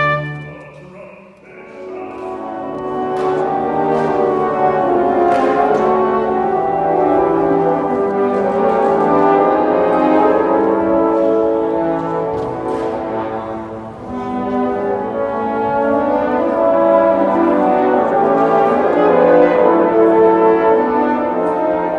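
Brass ensemble playing slow, sustained chords, with a short break between phrases about a second in and another near the middle.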